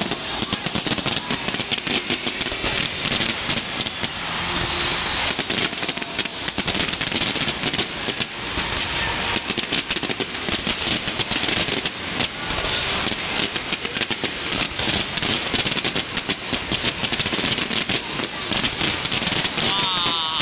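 Fireworks display: a dense, unbroken barrage of bangs and crackles from shells bursting in rapid succession.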